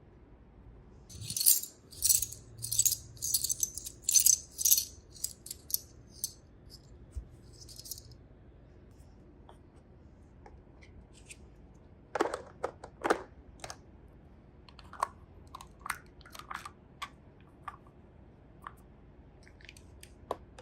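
Small plastic toy pieces being handled: a quick run of rattling shakes, then scattered clicks and taps.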